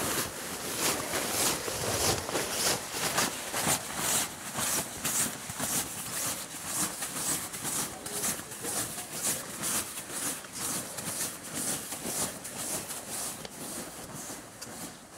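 Rhythmic rustling and scuffing of an inflatable nylon costume and plastic shopping bags, about two strokes a second.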